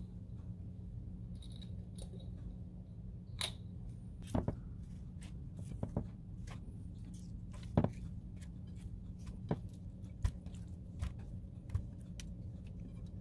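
Raw chicken thighs being put into a mixing bowl one piece after another: a series of short, soft thuds and handling noises a second or two apart, over a steady low hum.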